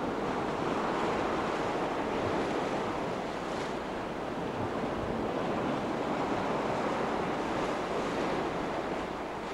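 Sea waves washing and breaking against the rocks of a breakwater, a steady rushing surge, with wind on the microphone.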